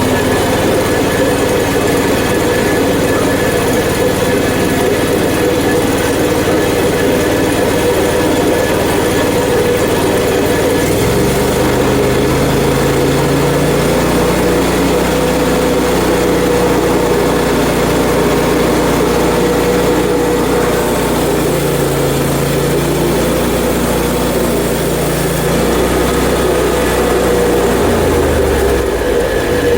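Gasoline engine of a Hud-son HFE-30 portable bandsaw mill running steadily. About a third of the way in its pitch steps up to a higher speed, and it drops back down near the end.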